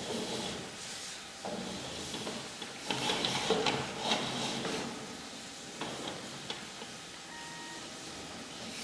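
Irregular rubbing, scraping and clicking of a sewer-scope camera's push cable being fed down a sewer line, in uneven spells.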